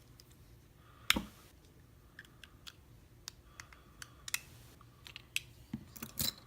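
Small clicks and taps of a Viro euro cylinder lock and its parts being handled, with one sharper knock about a second in and a quick run of clicks near the end.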